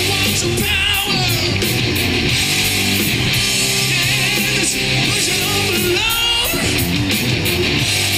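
Rock music: a full band with electric guitar playing, the guitar bending notes about a second in and again near six seconds.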